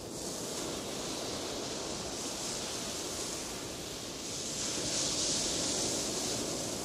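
Logo-intro sound effect: a steady rushing hiss, swelling a little about two-thirds of the way through.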